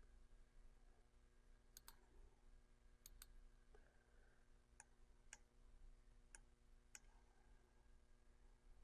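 Faint computer mouse clicks, about eight of them spread irregularly, some in quick pairs, over a low steady hum.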